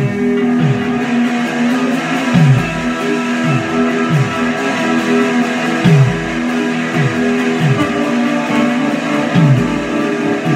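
Band jam: guitar playing held chords over a programmed beat whose deep kick drum drops in pitch on each hit, with a heavier low boom every few seconds.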